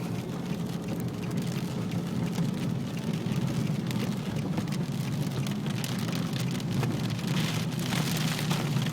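Rain pattering on a car over the car's steady low rumble, the rain getting heavier near the end.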